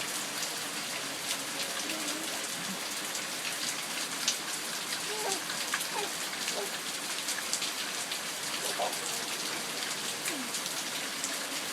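Steady rain falling: an even hiss of drops on the ground, with scattered sharp ticks from nearby drops.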